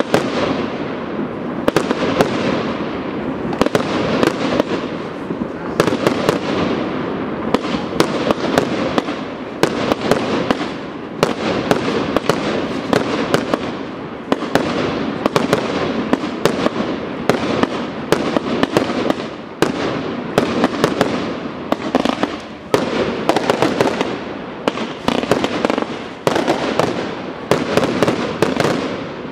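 Fireworks display: aerial shells launching and bursting, a dense run of sharp bangs, often several a second, over a continuous din.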